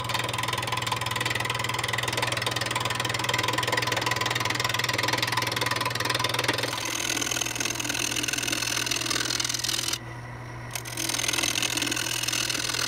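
A JET wood lathe runs with a steady motor hum while a turning tool cuts a wooden handle mounted off center, making a continuous cutting noise. The cutting stops briefly about ten seconds in, then starts again.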